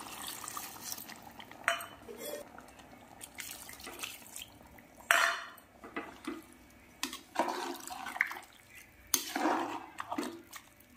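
Water poured into a metal pressure cooker of chicken gravy, with a spoon stirring and clinking sharply against the pot several times.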